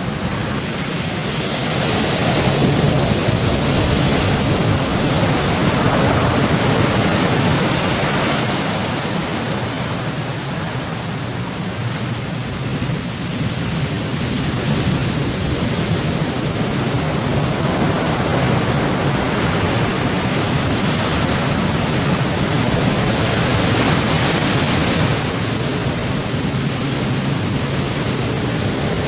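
Big waves in rough seas: a loud, continuous rushing wash of water that swells and eases every few seconds.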